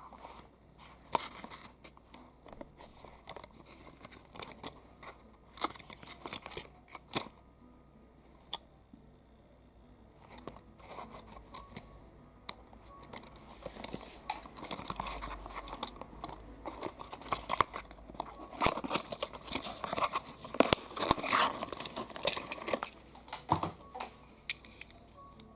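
Small cardboard toy box with a plastic window being handled and opened by hand: scattered clicks and taps at first, then a longer stretch of crinkling and tearing, loudest past the middle, as the die-cast model car is pulled out of its packaging.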